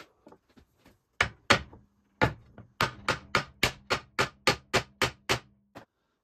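A hammer striking a wooden block held over a glued box-joint corner, seating the fingers: a few light taps, then about a dozen sharp knocks at roughly three to four a second that stop suddenly near the end.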